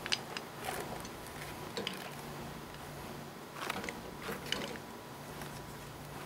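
Quiet room tone with a low steady hum and a few faint, irregular clicks and rustles.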